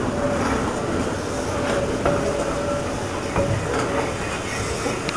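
Goods wagons and a brake van rolling slowly past on jointed track: a steady rumble of wheels with several sharp clanks and knocks, and a brief thin wheel squeal about two seconds in.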